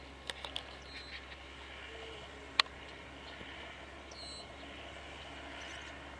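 Kubota M5140 tractor's four-cylinder diesel and CM 165 drum mower running faintly at a distance, getting slightly louder as it approaches. A few light clicks come in the first second and one sharp click about two and a half seconds in, along with a few short high chirps.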